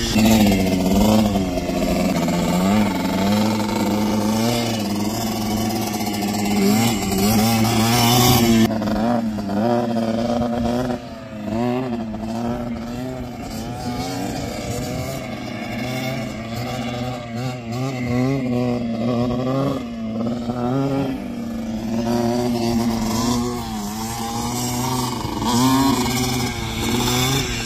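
Small dirt bike engine revving up and down as it rides around, its pitch rising and falling with each throttle change.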